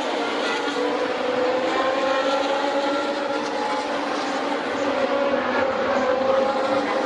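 Vintage 1970s–80s Formula 1 car engine running hard at high revs, a steady engine note whose pitch rises slightly over the first couple of seconds and then holds.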